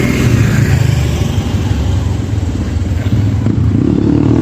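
Kayo T2 dirt bike engine running at low revs, a steady low note that strengthens a little about three and a half seconds in.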